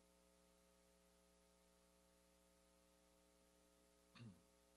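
Near silence with a faint steady electrical hum, and a brief low vocal sound near the end.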